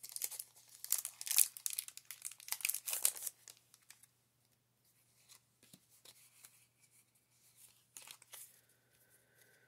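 Foil Pokémon TCG booster pack wrapper crinkling and rustling as it is handled and the cards come out. It is densest and loudest in the first three and a half seconds, then turns into sparser, quieter rustles.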